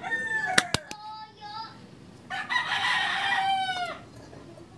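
A rooster crowing: one long call of about a second and a half, beginning about two seconds in and falling at the end, after a shorter call and two sharp clicks in the first second.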